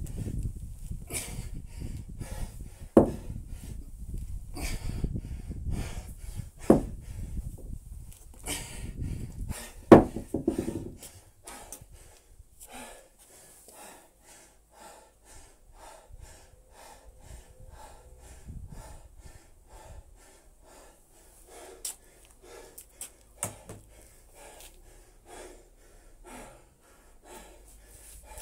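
A man breathing hard, panting about twice a second, while resting between kettlebell snatches. In the first ten seconds or so there are sharp thuds about every three and a half seconds over a low rumble of movement.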